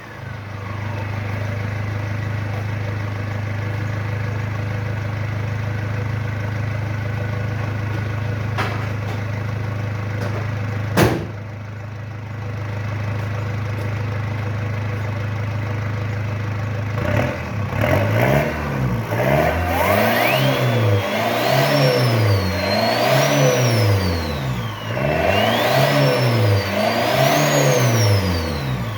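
Engine idling steadily through an exhaust-mounted turbo whistle (a small turbocharger on the tailpipe), whose high whistle spins down at first. A sharp click comes about eleven seconds in. From about two-thirds of the way through, the engine is revved again and again, and the whistle rises and falls in pitch with each rev.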